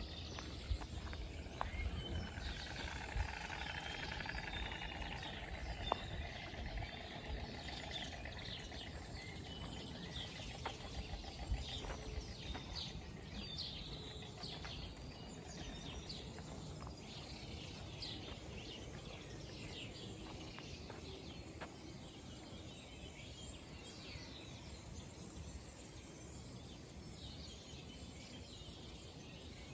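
Small birds chirping and singing over a steady outdoor background noise, with a few sharp clicks in the first half; the chirping thins out in the second half.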